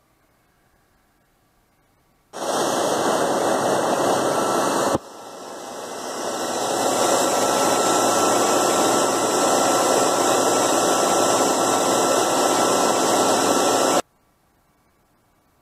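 A TOS WH 10 CNC horizontal boring mill's spindle running, a loud, steady, hiss-like machine noise. It starts suddenly, drops away about five seconds in and builds back up over two seconds, then stops abruptly.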